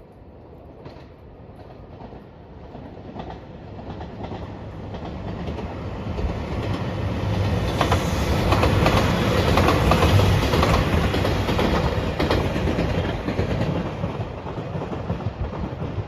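Passenger train approaching and passing at speed, wheels clacking over the rail joints. It grows steadily louder, is loudest about halfway through, then fades as it goes by.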